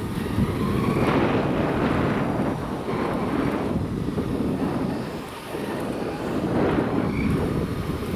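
Wind buffeting the microphone of a camera riding on a moving electric go-kart, over the kart's running noise on the track. The rushing swells and eases, dipping briefly about five and a half seconds in.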